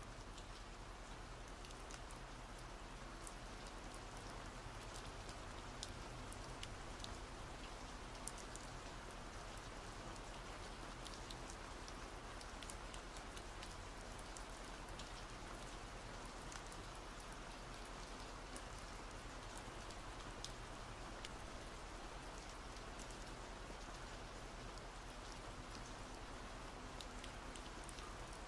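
Steady rain falling, with many small, scattered drop ticks over an even hiss.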